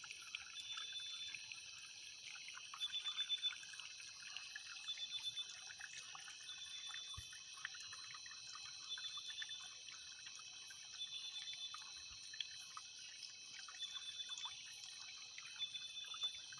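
Faint night chorus of insects and frogs: a steady high-pitched drone, with a short trilled call repeating about once every second or so and scattered small crackles.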